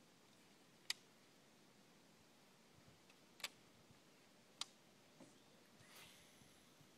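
Near silence broken by three sharp, short clicks, about a second in, about three and a half seconds in and about four and a half seconds in, with a soft rustle near the end.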